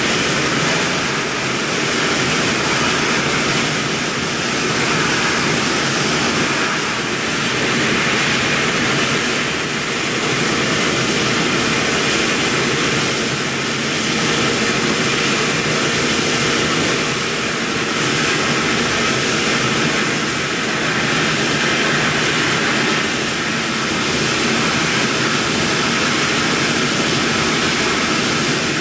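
Mikron VCE800ProX CNC vertical machining centre milling metal: a steady rushing noise from the running spindle and the cut, swelling and easing about every three seconds as the tool moves through its passes.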